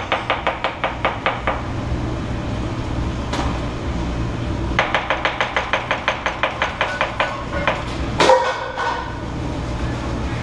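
A knife chopping on a cutting board in quick, even runs of about five strokes a second, one at the start and another midway. There is a single louder clatter about eight seconds in, over a steady low background hum.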